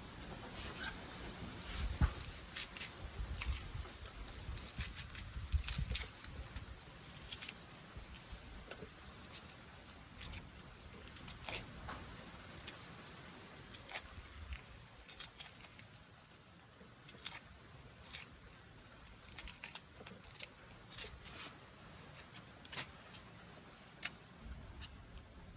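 Knife work on snake tomato: irregular light clicks, snips and scrapes as the gourd is cut up and its seeds handled.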